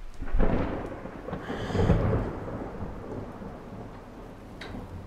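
A sudden clap of thunder, with a second loud peak about a second and a half later, then a long rumble dying away.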